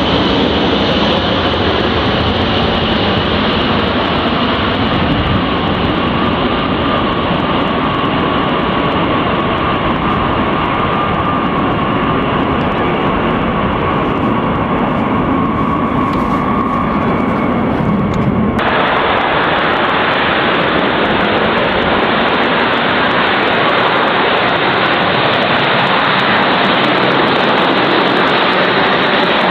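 Eight TF33 turbofan engines of a B-52H Stratofortress at takeoff power: loud, steady jet noise with a thin high whine over it as the bomber takes off and climbs away. About two-thirds of the way through, the sound cuts suddenly to another B-52 rolling on the runway, with fuller jet noise and no whine.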